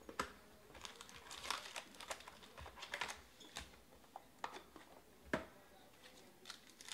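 Trading-card box and foil-wrapped card packs being handled on a table: scattered taps and clicks as the packs are lifted out and stacked, with some crinkling of the foil wrappers. Two sharper knocks stand out, one just after it begins and one about five seconds in.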